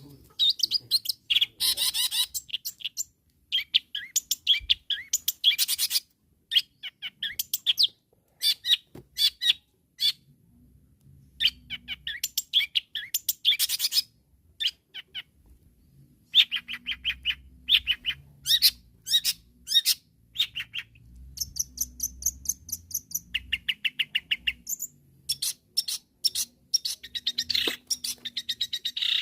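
Long-tailed shrike singing energetically: rapid chattering runs of short, high notes in bursts of a second or two, broken by brief pauses. It is the shrike's challenging song that keepers use to call rival birds and set them singing.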